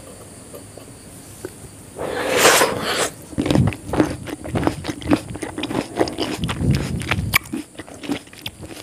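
Close-miked eating sounds: fingers tearing apart crispy fried chicken lollipops. A loud crunching tear about two seconds in is followed by a rapid run of small crackles and wet clicks as the meat is pulled and chewed.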